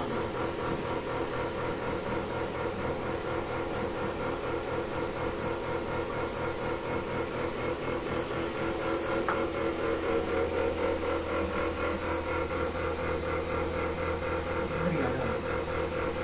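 A motor running steadily, a constant hum with a fast, even throb that stays the same throughout.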